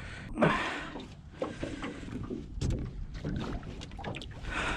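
Water splashing and sloshing at a boat's side as a catfish is held by the lip in the water, with a few knocks on the hull.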